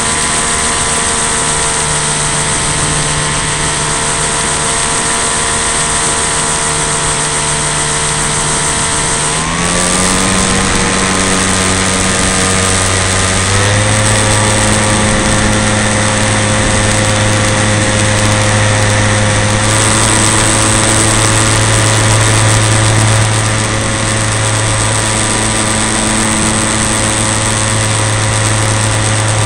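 Engine of a radio-controlled Piper model plane running in flight, heard from a camera on board, over a steady rush of air. Its pitch rises about a third of the way in, steps up again a few seconds later, and then holds.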